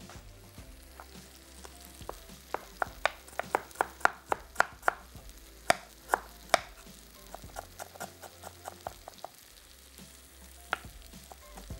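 Knife chopping on a cutting board: a run of sharp, irregular knocks, loudest and most frequent between about two and seven seconds in, thinning to a few lighter taps later.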